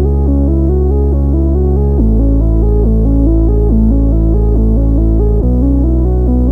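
Electronic background music: a repeating synthesizer arpeggio over held bass notes that change twice.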